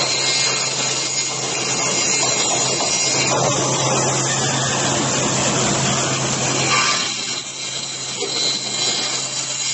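LCJG3-CNC-6000 CNC aluminium profile cutting saw running, a dense hiss over a steady hum. The hum drops away about seven seconds in and the sound gets quieter.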